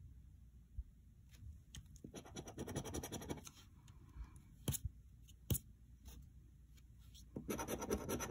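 Scratching the coating off a paper scratch-off lottery ticket, in two bouts of quick rapid strokes: one about two seconds in and another starting near the end, with a couple of sharp ticks between them.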